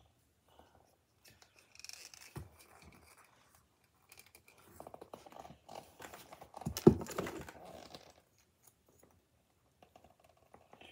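Hands handling a plastic toy figure and its packaging: scattered scratches, small clicks and rustles, with a louder bump about seven seconds in.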